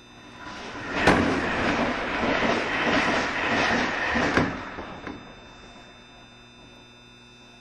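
A burst of hissing compressed air from a JR Shikoku 7200 series train's pneumatic equipment, cut in and cut off by a sharp clack, lasting about three seconds.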